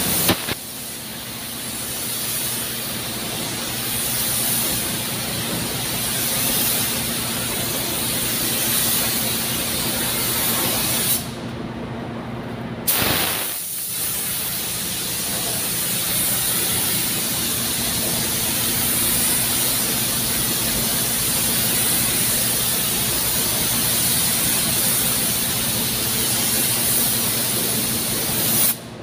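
Compressed-air gravity-feed paint spray gun hissing steadily as paint is sprayed, over a low steady hum. The spray stops for about a second and a half around eleven seconds in, then resumes and cuts off at the very end.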